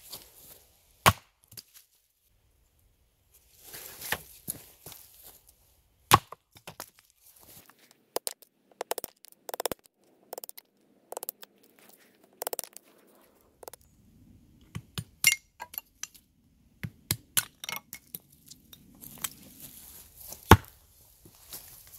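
Small axe splitting wood on a chopping block: sharp single chops about a second in and at about six seconds, a quick run of lighter strikes around eight to ten seconds as thin kindling sticks are split off, then a few more chops, the last and one of the loudest near the end.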